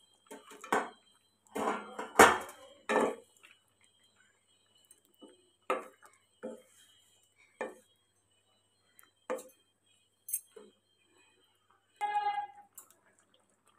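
A steel bowl and a wooden spatula clink and knock against a non-stick kadai as fried bori and brinjal are stirred into a simmering milky vegetable curry. A quick cluster of knocks comes in the first three seconds, then single knocks about once a second, and a short pitched sound comes near the end.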